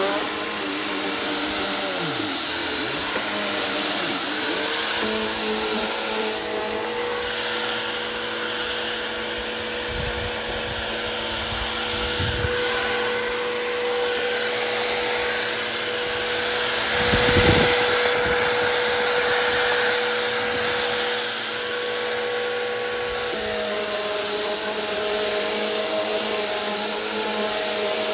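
Bissell Powerforce Helix 2191 bagless upright vacuum running steadily with a high whine, vacuuming a sandy rug. It surges louder for about a second roughly two-thirds through, and its motor pitch shifts a few seconds later.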